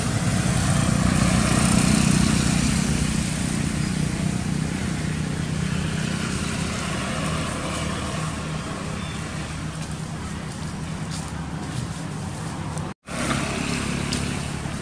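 A motorbike engine running as it passes on the road. It is loudest about two seconds in and slowly fades, and the sound breaks off briefly near the end.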